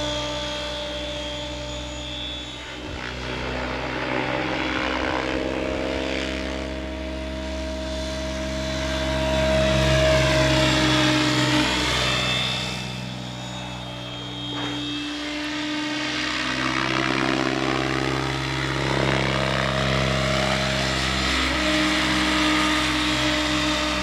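Align T-Rex 800 RC helicopter, converted for crop spraying, flying fast passes: its rotor and drive whine rises and falls in pitch and swells and fades as it sweeps by, loudest about ten seconds in.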